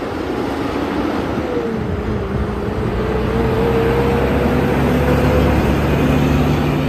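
Diesel semi-truck pulling a trailer, its engine working under load as it drives out and passes close by, getting louder toward a peak about five seconds in, with a faint wavering whine over the engine.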